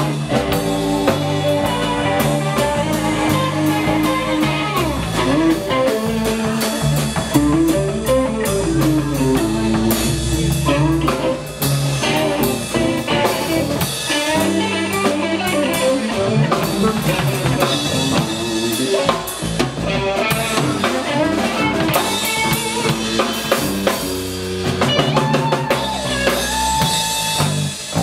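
Live rock band playing an instrumental passage: electric guitar lines that bend and slide over electric bass and a full drum kit with snare and bass drum.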